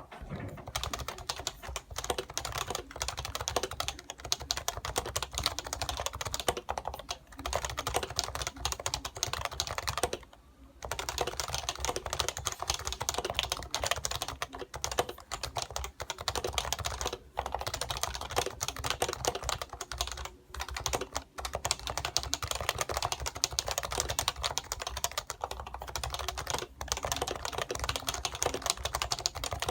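Fast, continuous typing on a PFU Happy Hacking Keyboard Professional 2 with stock, unlubricated Topre switches: a dense run of key strokes, with a brief pause about ten seconds in.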